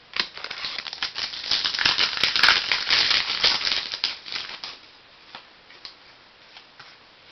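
Trading cards being handled: a dense rustle and scrape of cards sliding against each other for about four and a half seconds, then a few light ticks.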